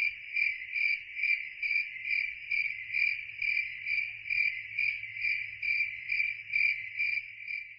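Crickets chirping, a steady high chirp pulsing evenly a little over twice a second. It is the comic 'crickets' sound effect for an awkward silence.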